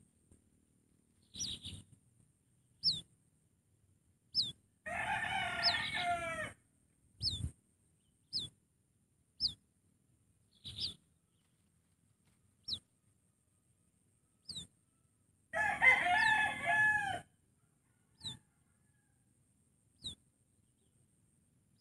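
A rooster crowing twice, about 5 seconds and 15 seconds in, each crow about a second and a half long. Between the crows a bird repeats a short, high whistled note that falls in pitch, about once a second.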